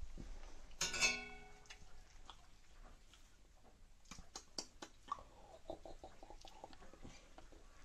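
A dog eating a piece of roti, with soft chewing clicks and smacks that come thickest in the second half. A brief whine about a second in is the loudest sound.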